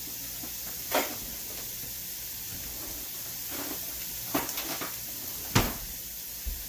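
Someone rummaging in a kitchen drawer for a cooking spoon: a sharp knock about a second in, then a cluster of clicks and knocks between about four and six seconds in, the last one the loudest, over a steady hiss.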